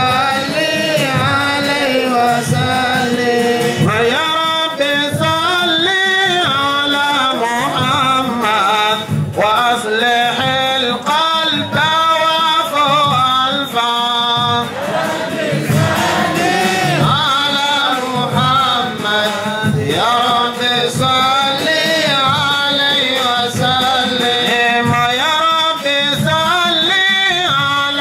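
A man chanting an Arabic devotional hymn into a microphone, his voice gliding and held on long notes, over a steady low drumbeat.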